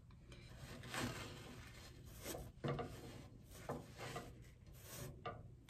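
Plastic spatula scraping and knocking against a skillet as English muffins are turned and nudged over semolina: a handful of brief, faint scrapes.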